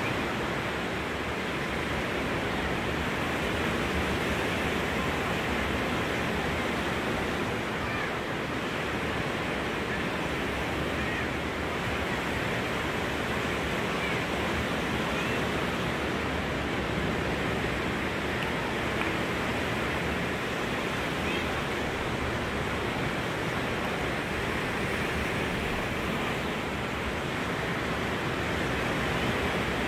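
Steady, even wash of surf from the Gulf beach far below.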